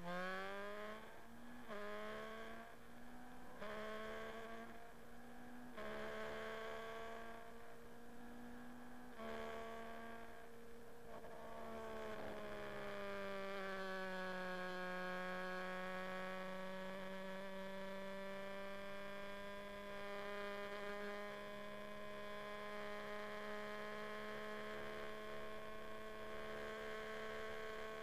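Formula Renault 2.0 single-seater's 2.0-litre four-cylinder racing engine accelerating hard. Its pitch climbs and drops back at about five quick upshifts in the first ten seconds, then it holds a steady high note at full throttle down the straight.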